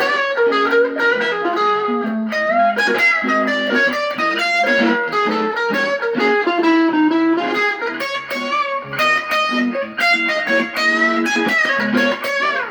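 Guitar playing a fast single-note D-flat major pentatonic run rooted on the fifth string, with chromatic passing notes between the scale tones.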